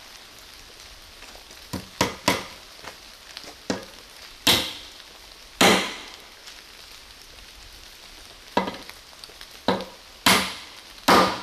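Hardened-steel hammer striking a nail into a wooden board: about ten sharp blows, lighter taps at first and heavier hits in the middle and near the end.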